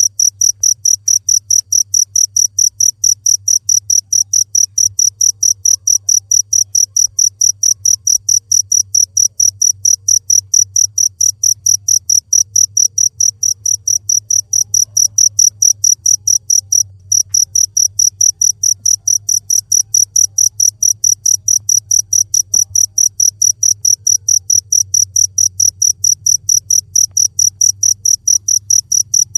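Cricket chirping in a steady, rapid, evenly spaced series of high chirps, with a brief break about seventeen seconds in, over a faint low hum.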